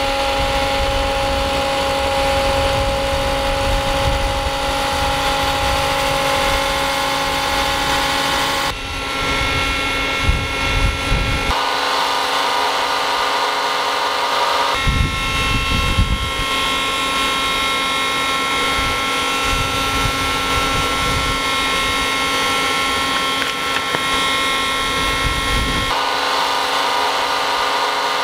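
Electric blender motor running steadily with a whining hum, its tone shifting abruptly several times as if switched between speeds.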